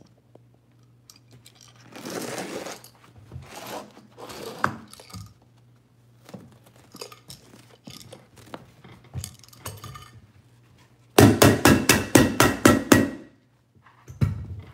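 Foam carpet pad being trimmed with a utility knife and pulled away along the baseboard: bursts of scraping and rustling with scattered clicks. Near the end, a fast run of about ten sharp knocks over two seconds is the loudest sound.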